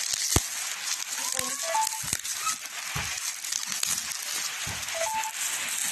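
Clear plastic wrapping crinkling and crackling as it is pulled and peeled off a small box by hand, with many small clicks throughout.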